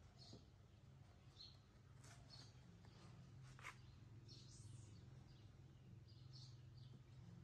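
Near silence: a faint steady low hum with scattered short, faint high chirps, and a single click about three and a half seconds in.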